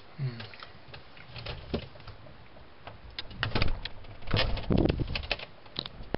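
Scattered clicks and knocks, with a cluster of heavier thumps a little past halfway.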